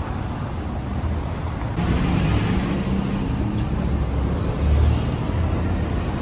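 City street traffic: motor vehicles running past, louder from about two seconds in, with a deeper swell near five seconds.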